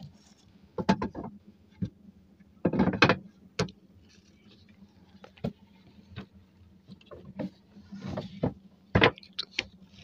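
Scattered knocks, taps and rubbing as a large catfish is handled on the wooden planks of a boat, with a few short louder clusters and a faint steady low hum underneath.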